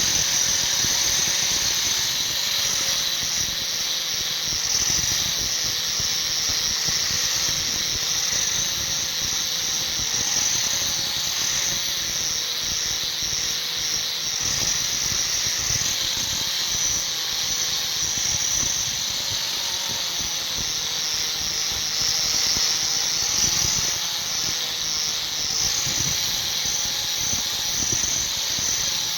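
Power grinder working steel, a steady high-pitched grinding squeal that holds level without a break.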